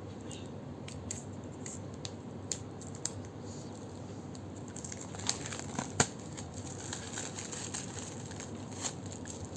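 Plastic wrapping on a deck of oracle cards crinkling and tearing as it is handled and pulled open, with scattered sharp crackles and clicks, the loudest about six seconds in.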